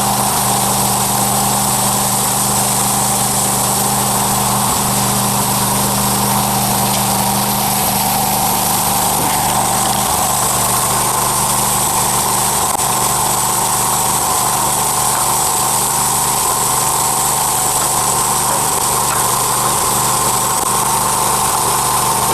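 Homemade sawmill running steadily: an even engine drone with a higher whine above it that holds constant, with a few faint clicks.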